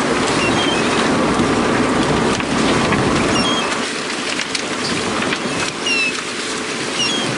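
Steady deck noise aboard a fishing boat, a dense hiss like running water over a rumble, with scattered clicks and several brief high, slightly falling chirps.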